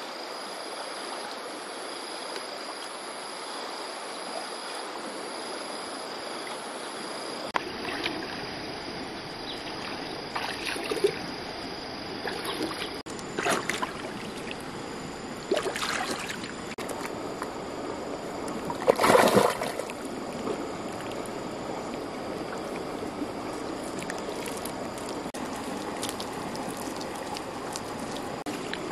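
A shallow stream running steadily, with several splashes of water as a person wades and scoops in it; the loudest splash comes about two-thirds of the way through.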